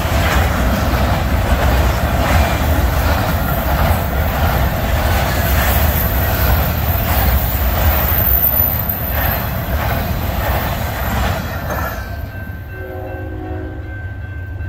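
Intermodal freight train of flatcars carrying truck trailers rolling by: a steady wheel-and-rail rumble with repeated clicks as wheels cross rail joints, fading away about twelve seconds in as the last car passes. Steady high tones from the grade-crossing signal then stand out.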